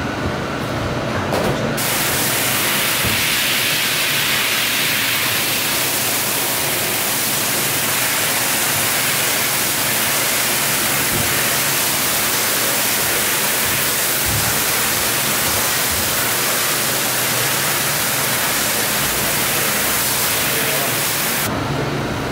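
Pressure-washer wand spraying a jet of water onto a soaked, soapy rug: a steady hiss of spray that starts about two seconds in and cuts off just before the end.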